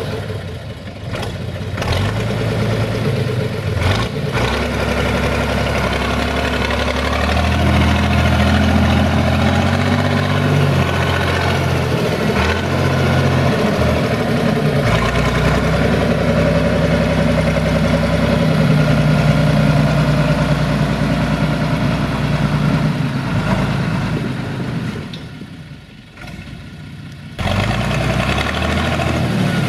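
SAME Laser 110 tractor's diesel engine running while the tractor skids logs, its engine speed shifting up and down several times. The sound drops away briefly near the end.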